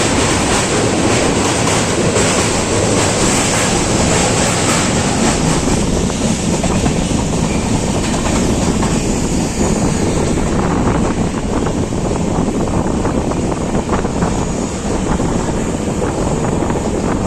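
Passenger train coaches running along the track, a steady loud rumble and rush of wheels on rails, with a few sharper knocks in the first seconds and wind buffeting the microphone.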